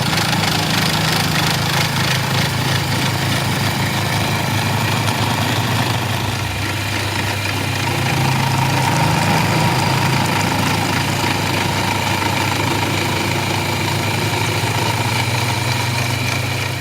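CNC milling machine running steadily as it mills the shape of a rudder pedal part: a loud, even machine noise with a low hum and a steady higher-pitched whine.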